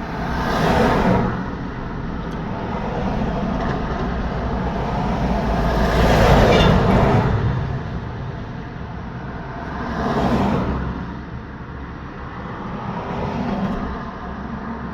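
Road traffic: vehicles passing one after another, each swelling and fading in tyre and engine noise over a steady background hum. One passes near the start, the loudest, with a deep rumble, about six seconds in, another about ten seconds in, and a fainter one near the end.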